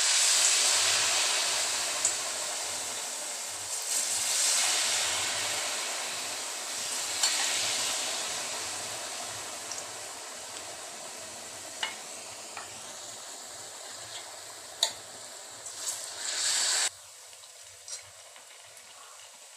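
Deep-frying sizzle as batter-coated potato balls go into hot oil in a kadhai: a loud bubbling hiss that swells as more balls are added and slowly dies down, with a few sharp clicks. The sizzle drops off suddenly near the end.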